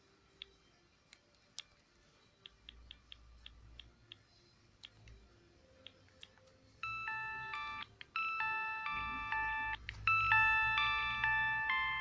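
Siemens S55 mobile phone: a few scattered button clicks, then from about seven seconds in a ringtone melody of bright beeping notes, several sounding together, plays through the phone's small speaker. It breaks off briefly twice.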